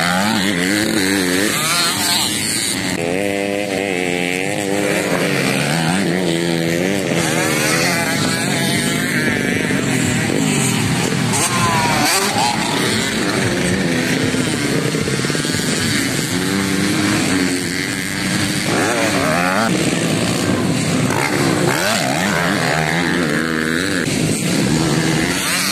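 Motocross dirt bikes riding a dirt track, their engines revving up and dropping back again and again as riders throttle over the jump and shift, with more than one bike heard at once.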